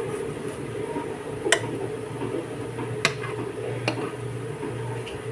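A metal spoon knocking and scraping against a nonstick frying pan as tofu patties are turned in oil. There are three sharp clinks, about a second and a half apart, over a steady low hum.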